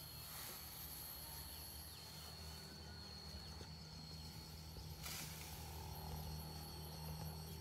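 Asian elephant feeding in a pile of cut bamboo: leaves rustling, with a sharp crunch about five seconds in. A steady high whine runs underneath.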